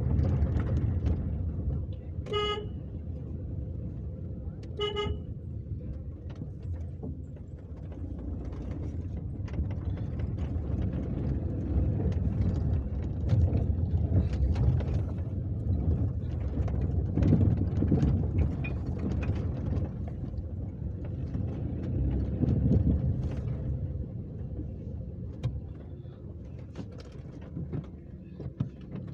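Cars on a road with a low engine rumble throughout, and a car horn tooting twice, briefly, about two and a half and five seconds in.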